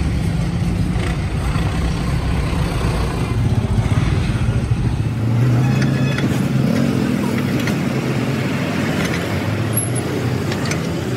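Engines of road traffic running close by: a steady low rumble, with a different engine note taking over about five seconds in.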